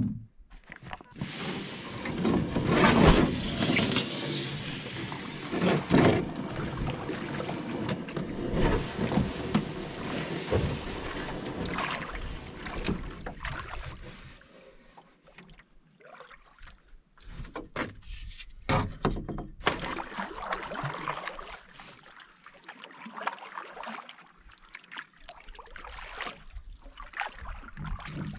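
Canoe being paddled: paddle strokes swishing and splashing in the water, with knocks and clicks against the hull. Busier in the first half, quieter with scattered clicks later on.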